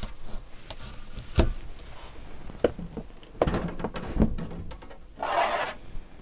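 Commodore 64 motherboards knocking and clattering against each other as they are rummaged in a cardboard box and one is lifted out: several sharp knocks, then a short scraping rustle about five seconds in.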